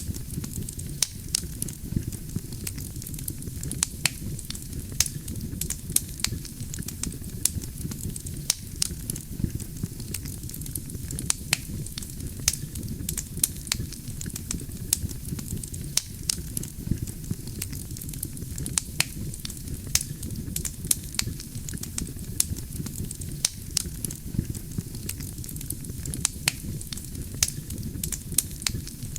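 Wood campfire burning: a steady low rumble of flames with frequent sharp, irregular crackles and pops from the burning logs.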